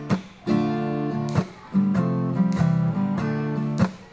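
Background music with strummed guitar chords.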